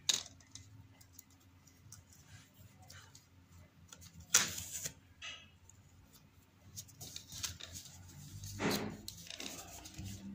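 Insulating tape being handled and pressed by hand onto the back of an LED TV panel: scattered light clicks and rubs, with two short, louder noisy bursts about four and a half and nine seconds in.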